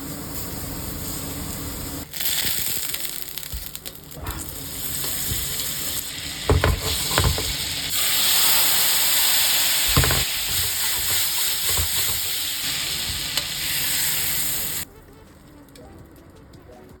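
Enoki mushroom bases dusted with potato starch sizzling in a frying pan, with a few short knocks a little over six seconds in and again about ten seconds in. The sizzling cuts off suddenly near the end.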